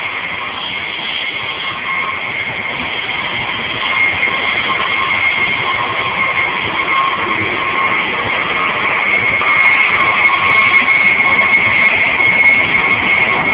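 InterCity passenger coach running at high speed on a high-speed line, heard from inside the vestibule: steady, loud rolling and wind noise with a high steady whine, growing a little louder in the second half.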